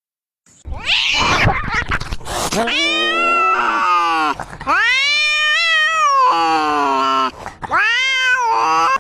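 A cat yowling: three long, drawn-out meows, each rising and then falling in pitch, after about two seconds of scratchy noise at the start.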